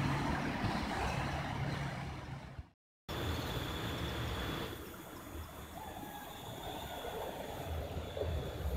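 Water rushing through a concrete irrigation channel, with low rumble on the microphone. It fades out about two and a half seconds in and breaks off into a moment of silence. Then quieter flowing water follows, with a faint steady high tone.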